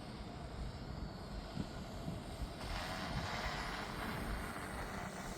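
Brushless motors and propellers of an eight-rotor drone whirring in flight, with a broader, louder rushing noise coming in about two and a half seconds in.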